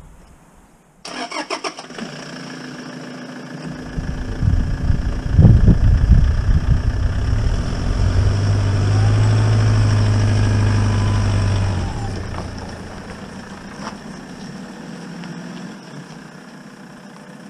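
Toyota Hilux pickup engine cranked and started about a second in, then running as the truck drives off. It is loudest in the middle, with a steady low hum and a whine that rises and falls, and it fades toward the end.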